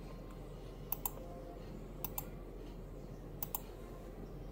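Faint pairs of short sharp clicks, about one pair every second or so, over a steady low hum.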